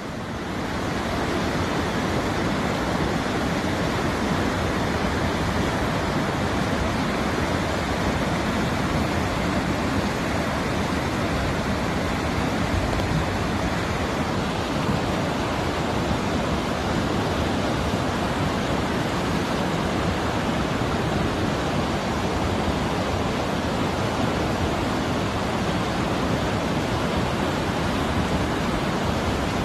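Swollen mountain river in flood, muddy water rushing past the road as one steady, loud, unbroken rush of noise.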